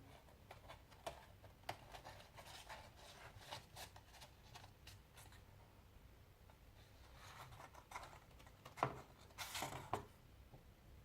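Quiet handling of a book-and-CD package: scattered small clicks and rustles, with a sharper click about nine seconds in followed by a short rustle.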